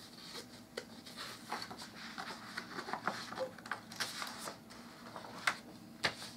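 Light rustling and soft taps of a large sketchbook's paper page being lifted and turned over, with two sharper paper snaps near the end.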